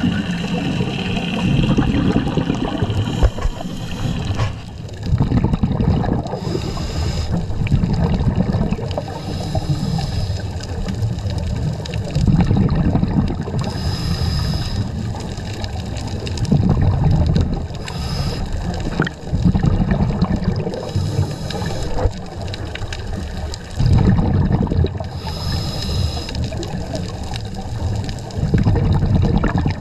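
Scuba diver's regulator breathing and exhaled bubbles heard underwater: a continuous low gurgling and rushing of bubbles, with a burst of hiss roughly every three to four seconds.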